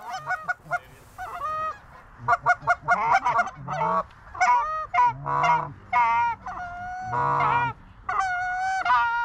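Canada geese honking and clucking: a quick string of short clucks about two seconds in, then longer honks, several held level, one after another.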